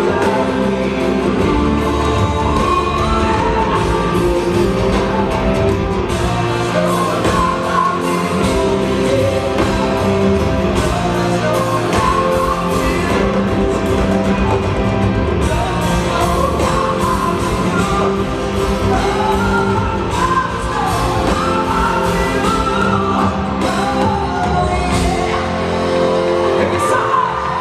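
Live rock band playing loudly, with a male lead singer singing over guitars, keyboard and drums.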